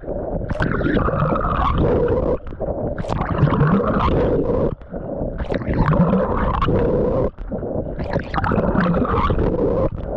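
Water sloshing and rushing around a camera carried by a swimmer mid-stroke, the sound muffled as if partly underwater, with a short break about every two and a half seconds in time with the strokes.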